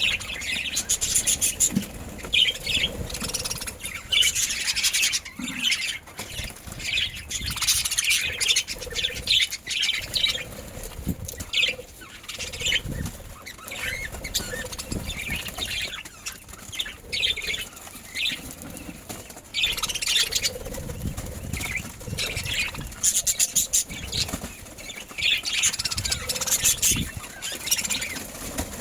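Budgerigars chirping and chattering in many short, irregular high-pitched bursts, with wing flapping and fluttering.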